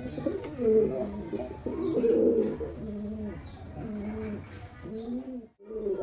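Male domestic pigeon cooing repeatedly: a series of low coos, each rising and falling, as he circles in courtship display. The sound cuts out briefly near the end.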